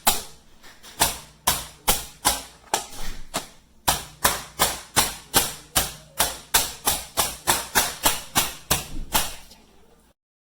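Meat tenderizer mallet pounding meat in quick, steady strokes, about three a second, with a short break about four seconds in; the pounding stops shortly before the end.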